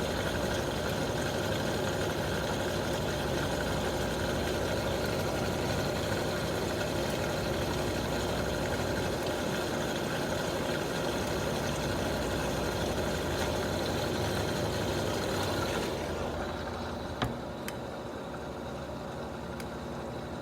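Electrolux LQ90 washing machine in its spin cycle, the drum and motor running with a steady hum and whine. About sixteen seconds in, the sound drops and the high whine fades, and a single sharp click follows shortly after.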